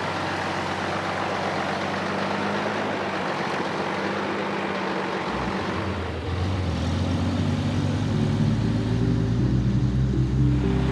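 A heavy vehicle's engine running steadily. About five seconds in, a deeper rumble joins in and the sound grows a little louder.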